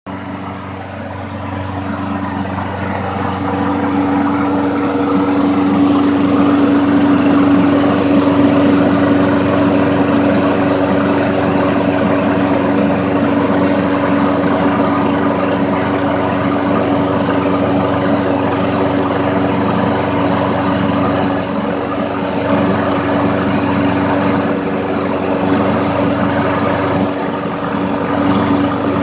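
Scotts 6.25 HP lawn mower engine running steadily, growing louder over the first few seconds. From about halfway through, a thin high squeal comes and goes in short stretches: an overlong shroud screw catching on the flywheel.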